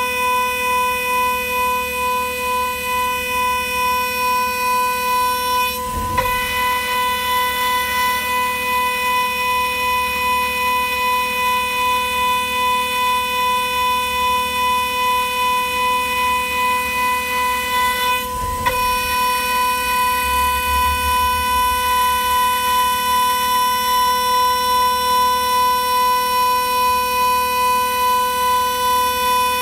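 High-speed spindle of a jewelry CNC milling machine whining steadily at one high pitch while a small end mill cuts the side of a metal ring blank, broken briefly twice.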